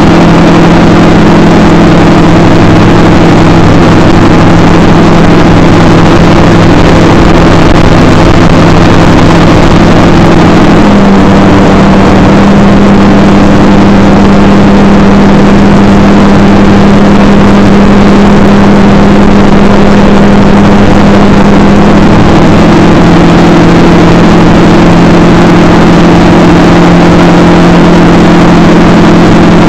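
Model aircraft's motor and propeller droning steadily and loudly right in front of the microphone. The pitch shifts about a third of the way in and shifts back about two-thirds of the way through.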